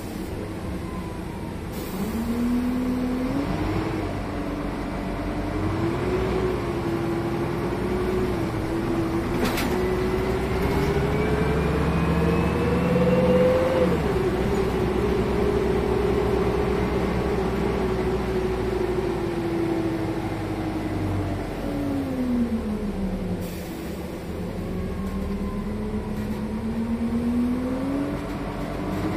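Renault R312 city bus's diesel engine heard from on board, rising in pitch as it accelerates. It steps down at a gear change about halfway through, falls away as the bus slows, then climbs again as it pulls off.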